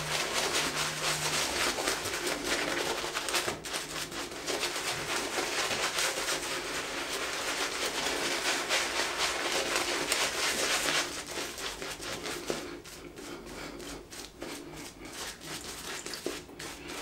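Synthetic-knot shaving brush scrubbing lather of shaving cream over stubbled cheeks and chin: a dense, rapid swishing of bristles through foam, which thins to quieter, scattered strokes about eleven seconds in.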